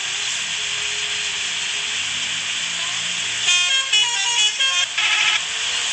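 A steady loud hiss, then about three and a half seconds in a bus's multi-tone telolet horn plays a quick run of changing notes for about two seconds, breaking off before the end.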